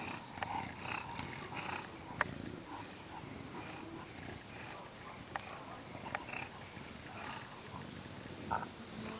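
English Bulldog puppies vocalising: many short squeaky whines and low grunting sounds, with scattered sharp clicks.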